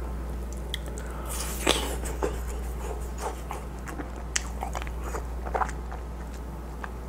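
Close-miked biting and chewing of a watermelon-shaped ice pop on a stick: wet mouth clicks and smacks come irregularly, with one louder, longer bite about a second and a half in.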